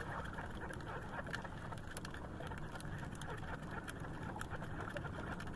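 Steady wind and sea noise around a small outrigger fishing boat, with scattered light clicks.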